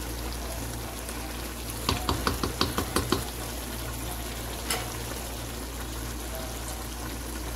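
Diced chicken and green peppers sizzling in a metal pot while a wooden spoon stirs them. The spoon knocks against the pot in a quick run of about eight taps two to three seconds in, and once more near the five-second mark.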